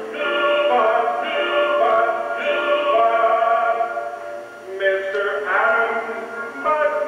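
Male voices singing a stage-musical number with accompaniment, sounding thin and muffled, with nothing above the mid-highs. The singing dips briefly a little past the middle, then picks up again.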